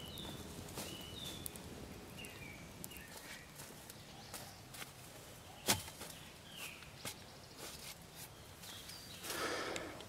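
Footsteps and shuffling on leaf-litter forest floor while a log is carried, with one sharp wooden knock a little past halfway as the log is set down. Birds chirp in the background, and there is a burst of rustling near the end.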